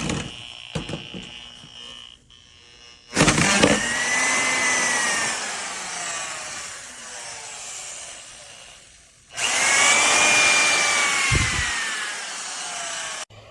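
AVID Power 6.5-amp compact wood router motor, switched on twice with a sudden start each time. Each time its whine rises briefly and then slowly falls in pitch over several seconds. A few light knocks come before the first start.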